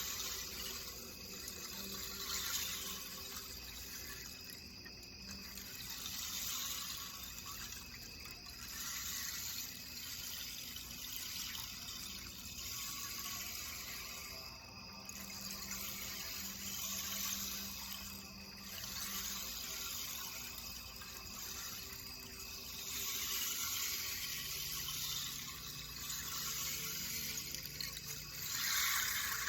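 Quartz crystal singing bowls holding faint steady tones, with a new low tone coming in about two-thirds through, under a rushing, water-like hiss that swells and fades every few seconds.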